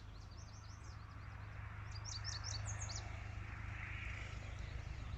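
Small birds chirping in two quick runs of short, high notes over a steady low outdoor hum.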